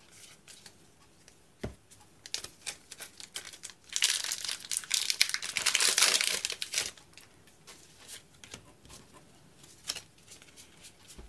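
Foil wrapper of a Pokémon Team Up booster pack being torn open and crinkled, loudest for about three seconds in the middle. Light clicks and taps of trading cards being handled come before and after.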